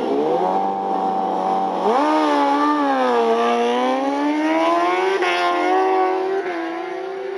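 A pair of drag-racing motorcycles launching off the line and accelerating hard down the strip. The engine note rises sharply, climbs through the run with short breaks, and fades as the bikes pull away.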